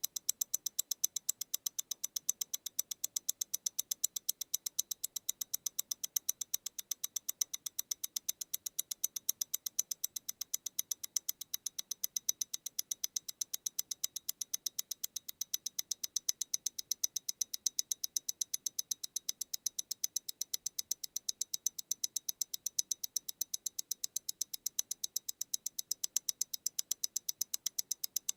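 MEMORIGIN Stellar tourbillon mechanical watch ticking: a fast, perfectly even run of crisp clicks at 28,800 beats per hour, eight ticks a second.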